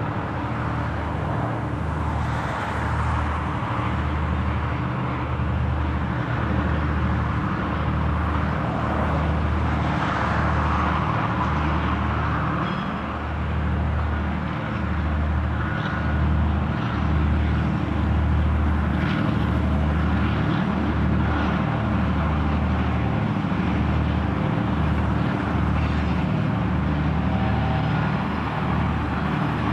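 Two M62 diesel locomotives running under power with a freight train, their two-stroke V12 diesel engines making a steady low drone that pulses unevenly.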